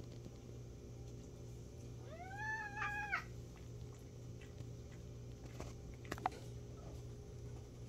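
A cat gives one meow about two seconds in, rising at the start and then held for about a second, during rough play between two cats. A few sharp clicks follow about six seconds in.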